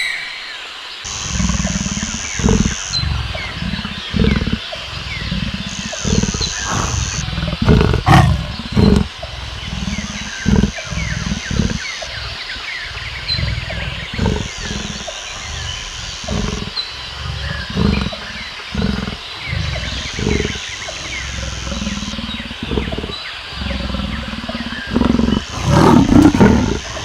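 A big cat roaring, a long series of short low grunting calls about one to two seconds apart, growing louder and closer together near the end, with many faint high chirps behind it.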